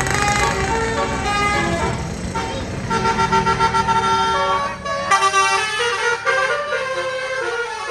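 Tour bus's basuri musical horn (telolet air horn) playing a melody of held notes that step up and down, over the bus's engine and road noise, which fade after about three seconds.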